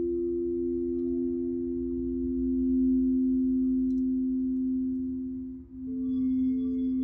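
Crystal singing bowls ringing together: two low, steady tones are held throughout. About six seconds in, after a brief dip in level, a higher bowl joins with a slightly pulsing tone.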